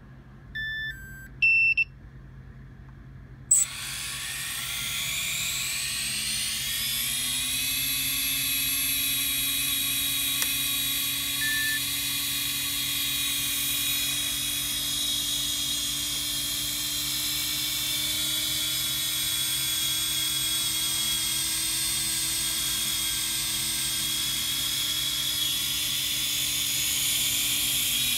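Two short electronic beeps, then the Walkera F210 quadcopter's brushless motors spin up without propellers about three and a half seconds in: a whine that rises in pitch for a few seconds, then runs steadily at a high pitch.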